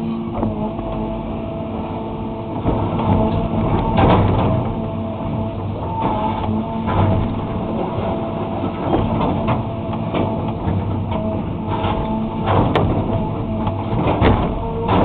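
Excavator's diesel engine running steadily, with repeated scraping and sharp knocks as the bucket strips asphalt.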